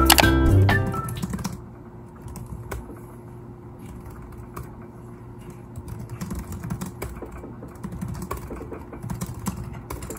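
Fingers typing on a laptop keyboard: an irregular patter of key clicks, with background music fading out in the first second or so.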